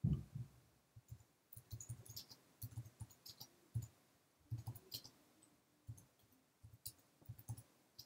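Typing on a computer keyboard: a string of irregular key clicks and soft key-bottoming thumps in short bursts with brief pauses, the loudest keystroke right at the start.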